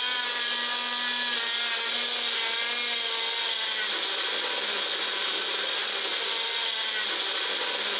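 Wonderchef Nutri-blend bullet blender running, its jar held pressed down on the motor base to keep it on, blending chopped apple, beetroot and carrot into juice. A steady motor whine whose pitch wavers for the first three seconds or so, then settles into a more even whirr.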